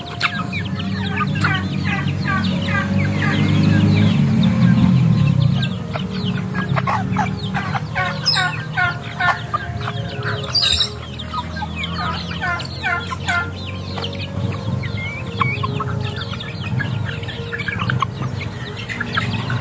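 A flock of young chickens clucking and peeping in many short calls as they crowd around to be hand-fed. A low hum runs underneath and is loudest about four seconds in.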